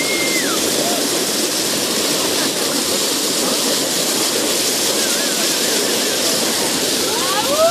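Steady rush of seawater, with a few faint whistles over it: one falling at the start, a warbling one about five seconds in, and rising ones near the end.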